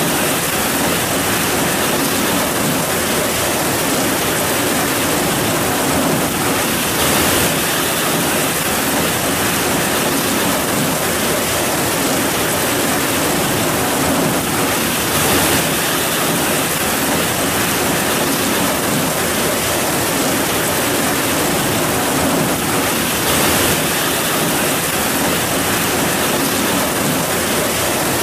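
Heavy rain falling, a loud, steady, dense hiss without a break.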